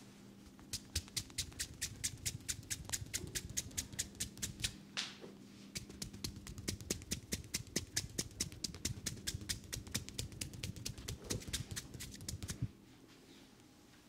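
Head-massage tapping with joined hands: palms pressed together and loose fingers clapping against each other as the hands strike the head and neck. The crisp clicks come about five a second, with a short break about five seconds in, and stop about a second before the end.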